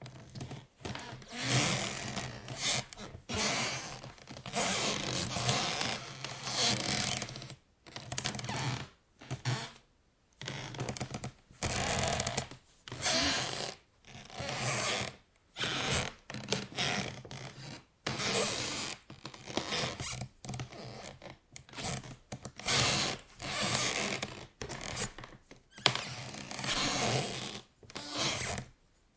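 Wooden floorboards squeaking and creaking under weight, in repeated irregular bursts of a second or two with short pauses between.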